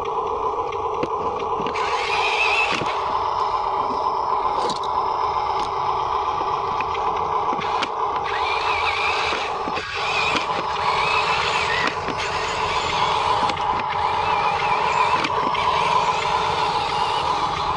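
Huina RC dump truck's electric drive motor and gearbox whining steadily as the loaded truck drives over dirt, with scattered small clicks throughout.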